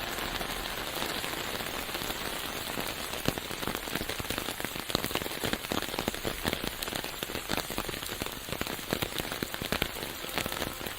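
Steady rain falling, with many individual drops tapping sharply close by.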